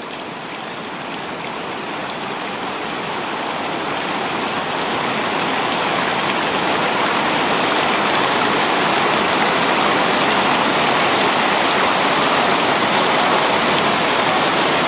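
Whitewater rapids of a jungle river rushing, the sound growing steadily louder.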